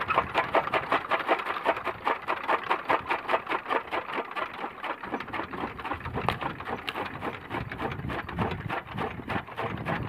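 Bull-powered gear toka machine (chaff cutter) running, its gearing giving a fast, even clatter of many clicks a second.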